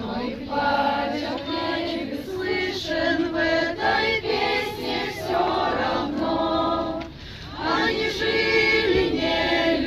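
A group of voices, mostly women's, singing a song together in chorus, with a short break about seven seconds in.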